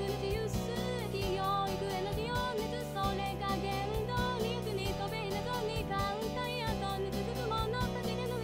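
AI-generated J-pop song: backing music with a steady beat and a wavering lead melody.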